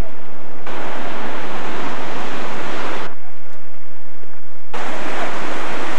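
Ocean surf breaking on a rocky shore, a steady rushing noise. It jumps abruptly louder under a second in, drops away suddenly about three seconds in and comes back just under five seconds in.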